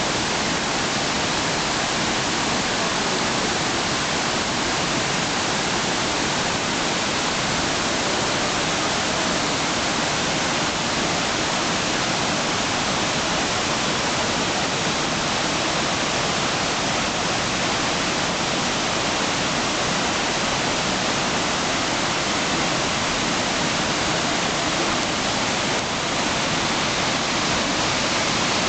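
Waterfall crashing down a rock face onto boulders and rushing on through a rocky stream: a loud, steady, even rush of water.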